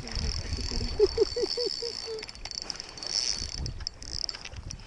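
Spinning reel being cranked while a hooked fish is played close to shore, with a short run of quick squeaks about a second in and scattered clicks and splashes later.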